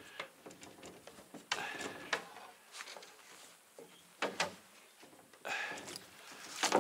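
Scattered knocks, clicks and clatter of fishing gear being handled in a small boat, as the landing net is fetched to land a hooked fish.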